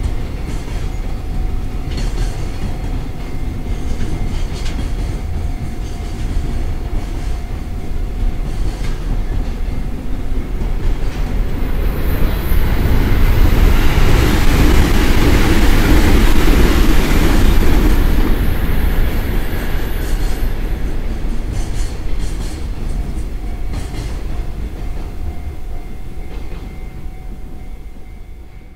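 Freight train container wagons rolling past, a steady low rumble with wheel clacks as the bogies cross rail joints. About twelve seconds in a louder rushing hiss swells up and fades again over several seconds, and the rumble dies away near the end.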